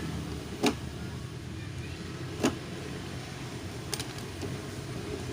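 Headlamp lens being pried off its housing with a scraper: two sharp clicks about two seconds apart as the plastic gives, then fainter ticks, over a steady low hum.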